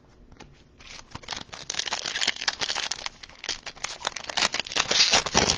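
Foil trading card pack wrapper being torn open and crinkled, a dense crackling rustle that starts about a second in.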